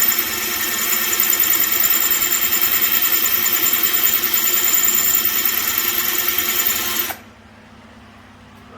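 AVID Power ACD 316N 20 V cordless drill/driver motor running steadily with no load, then stopping about seven seconds in. The drill still runs although its plastic housing is broken.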